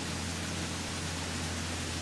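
Steady low hum with an even hiss behind it, unchanging in level.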